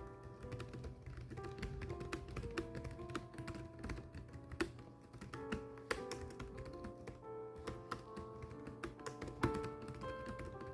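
A steady run of typing keystrokes: quick, irregular clicks. Melodic background music plays underneath.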